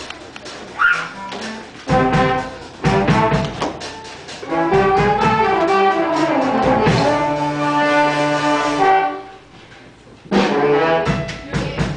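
Brass-led show-tune accompaniment: short punchy chords, then a long held chord with a sliding line falling beneath it, a brief drop about nine seconds in, and more punchy chords near the end.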